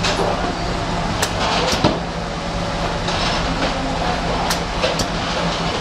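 Automated inspection machine running with a steady low mechanical hum, broken by several sharp clicks or clacks, two near the start and two later on.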